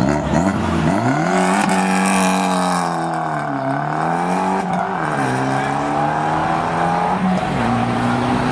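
Car engine revving, its pitch climbing and dropping back several times, then holding steady near the end.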